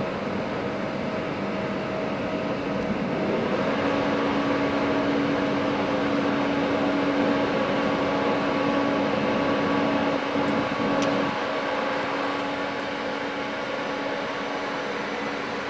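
ÖBB Cityjet (Siemens Desiro ML) electric multiple unit standing at the platform, its converter and cooling equipment humming steadily. A low steady tone comes in about three and a half seconds in and drops away about eleven seconds in, with a short click.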